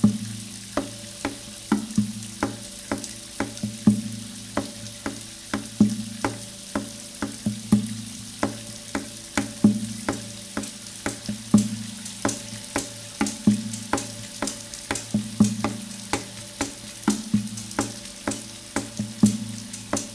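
Soundtrack percussion: a steady rhythm of dry clicking taps, about three a second, with a louder accent every two seconds or so, over a low steady drone.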